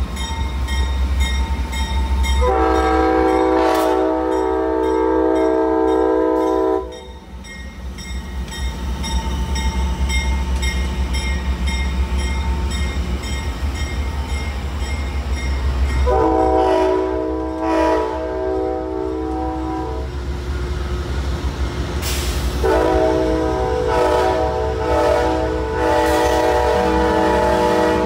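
Amtrak train led by two GE Genesis P42 diesel locomotives passing close by, sounding its multi-note horn in three long blasts, the last still going at the end, over the low, steady rumble of the diesel engines.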